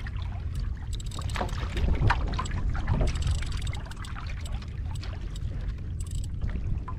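Wind rumbling on the microphone and water lapping and splashing against a kayak's hull, with scattered small clicks.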